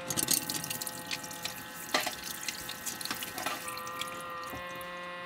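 Water running and splashing, with a few sharp clinks in the first half, which the tags take for a sink or tap.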